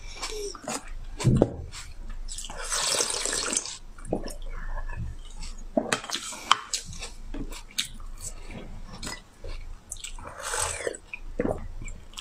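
Wet slurping as green jelly is sucked out of glass test tubes by mouth: three long slurps, with short clicks and taps of the glass tubes between them.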